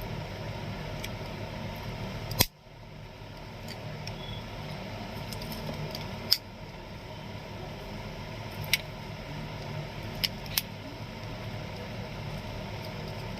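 A few sharp clicks and taps from a small blade working at the plastic casing and tape of a keypad mobile phone, over a steady low hum.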